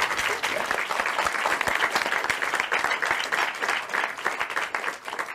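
Applause from a crowd, many hands clapping steadily.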